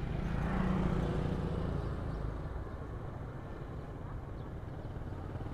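Traffic noise: a vehicle engine passes, loudest about a second in, then settles to a steady low hum.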